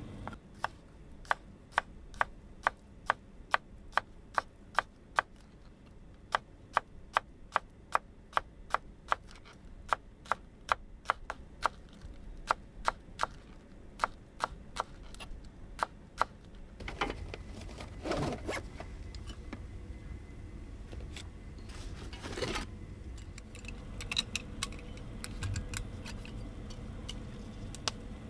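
A steady run of sharp taps, about two and a half a second, with a short pause about five seconds in. The taps stop about sixteen seconds in, and two short scraping sounds follow.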